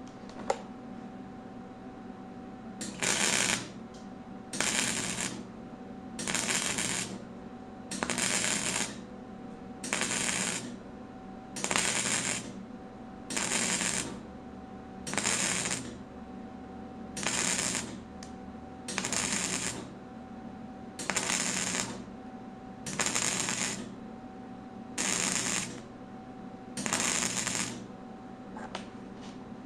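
Wire-feed welder stitch-welding sheet metal in short trigger pulls: about fourteen crackling bursts of roughly a second each, one about every two seconds, with a steady hum between them.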